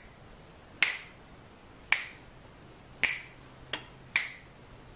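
A person snapping their fingers, five sharp snaps at roughly one-second intervals.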